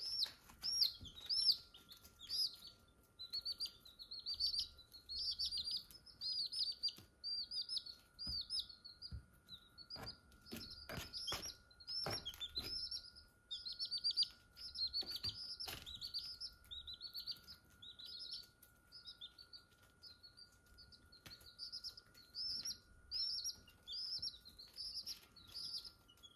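Baby chicks peeping nonstop, a rapid string of short high-pitched cheeps. A handful of sharp clicks come about halfway through.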